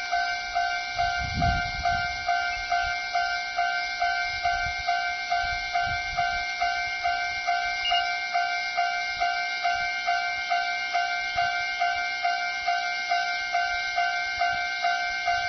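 Japanese level-crossing warning bell ringing, a steady electronic clang of the same few tones repeating about twice a second. It signals that the crossing is closed for an approaching train.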